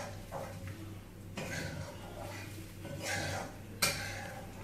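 A spatula scraping and knocking against a wok as garlic is stir-fried. There are a few scrapes, and the sharpest knock comes nearly four seconds in.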